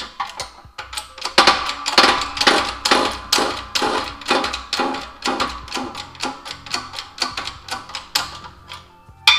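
Hand-pumped bottle jack of a hydraulic shop press clicking with each stroke of its handle, a steady run of about two to three clicks a second, as it presses the sleeve out of a tensioner pulley bearing. A louder metallic clank with some ringing comes just before the end.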